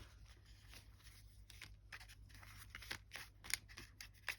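Faint handling of paper sticker labels: scattered light clicks and rustles of paper, growing busier about halfway through, with a sharper tick near the end.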